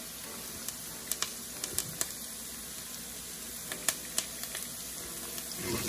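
Garlic and fresh thyme sautéing in a pan: a steady sizzle with scattered sharp crackles.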